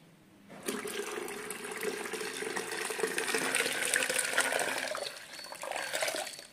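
Water pouring out of a long rubber glove into a plastic pitcher: a steady splashing pour that starts about half a second in and stops near the end.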